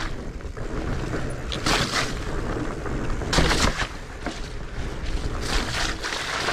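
Mountain bike riding over a rough, muddy singletrack: a steady low rumble of tyres and frame, broken by several sharp clatters and knocks from the bike over roots and bumps.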